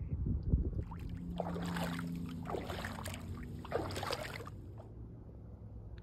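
Water splashing and sloshing for about four seconds, starting about a second in, as a beaver moves off from the shallows and swims away, over a low steady rumble.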